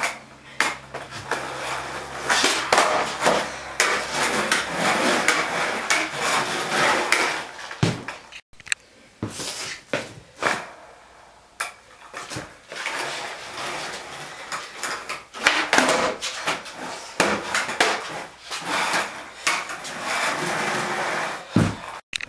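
Skateboard wheels rolling on a concrete garage floor, broken by repeated sharp clacks of the board's tail popping and the board landing. The sound cuts out abruptly twice.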